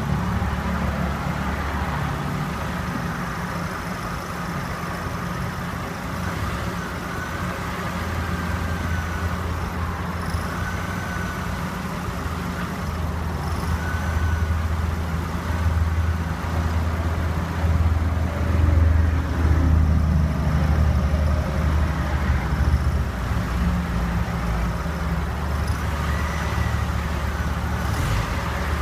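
Nissan Note E11's CR14 inline-four engine running, with a short high-pitched squeak coming and going over the engine hum every few seconds. It is a stray squeak near the front right wheel whose cause the owner does not know.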